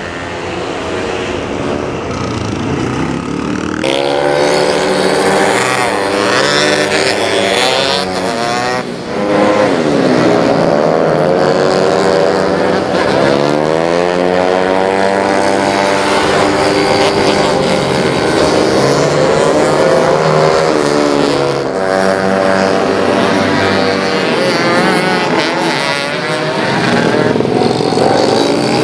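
Several race-tuned scooter engines, Yamaha Mio J automatics among them, revving hard at once as they accelerate and brake through corners. Their pitch rises and falls again and again, with more than one engine heard together.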